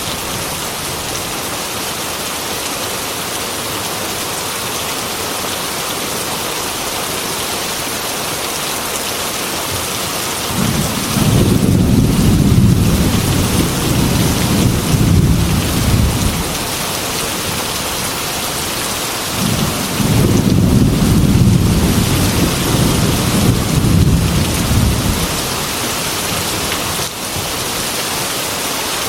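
Heavy rain falling steadily, with two long rolls of thunder: the first a third of the way in, the second past two-thirds, each lasting about five or six seconds.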